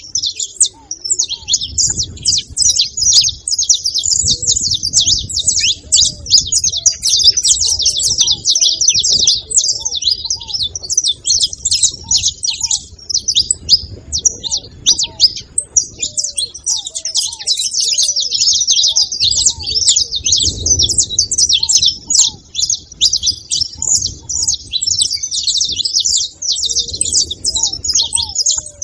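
Several saffron finches chirping and twittering at once, a dense, unbroken chatter of short high notes.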